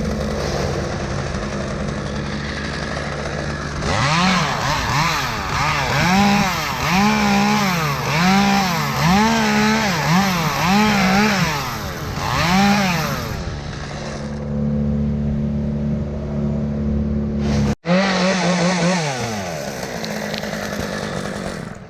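Chainsaw revving up and down again and again as it cuts through a limb, over a steady engine hum; the saw falls back to a steady run after about thirteen seconds and revs once more near the end.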